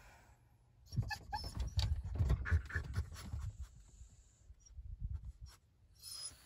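French bulldog shifting about in a wire dog crate, breathing noisily with a few short whines, along with clicks and light rattles from the crate. The sounds cluster between about one and three and a half seconds in, with another brief rustle near the end.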